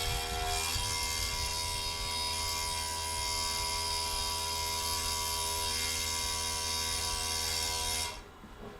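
3040T desktop CNC milling machine running a job: a steady electric motor whine with several tones over a hiss, shifting in pitch in the first second or so, then holding steady. It stops abruptly about eight seconds in.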